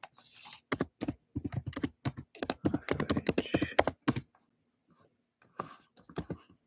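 Typing on a computer keyboard: a quick, uneven run of keystrokes for about four seconds, a short pause, then a few more keys near the end.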